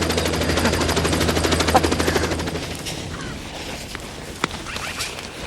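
Aircraft engine running with a fast, even pulsing beat, fading away about two and a half seconds in. A single sharp click follows near the end.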